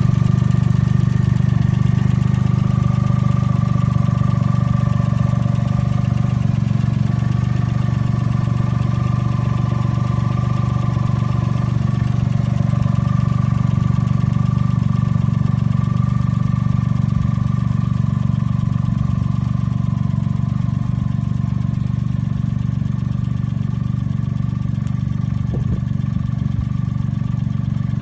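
Suzuki Cappuccino's small three-cylinder engine idling steadily.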